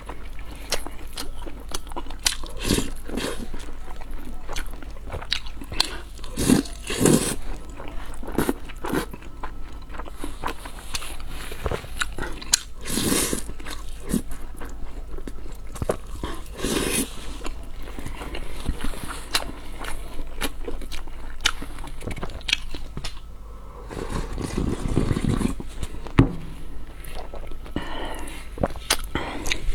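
Close-miked eating: a person biting and chewing food, with a dense, irregular run of sharp mouth clicks and crunchy bites.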